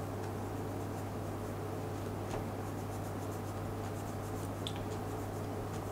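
Faint scratchy rubbing with scattered small ticks as a small gear from a Ricohflex TLR camera is wiped clean, over a steady low hum.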